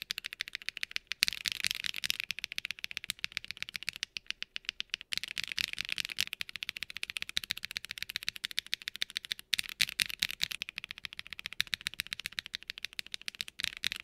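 Fast typing on a Zoom65 V2 mechanical keyboard with a polycarbonate plate and no foam: a quick, uneven run of key clacks from Akko switches, with brief pauses where the switch under test changes. The stock Snow Blue Grey switches come first, smooth but with noticeable spring ping, and stock Cream Yellow switches follow, which are higher pitched and slightly thinner.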